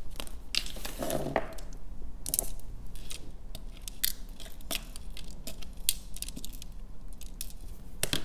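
Small glass Swarovski crystal rhinestones clicking and clinking as they are tipped and pushed from a plastic triangle tray into the compartments of an acrylic organizer box: a string of light, irregular ticks, several a second.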